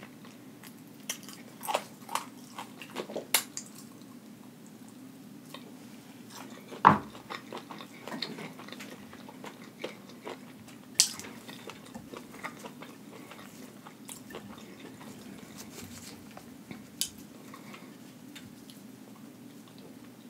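Close-miked chewing and mouth sounds of a person eating Flamin' Hot Cheeto–crusted fried chicken: scattered wet clicks and soft crunches, with two sharper clicks about seven and eleven seconds in, over a faint steady low hum.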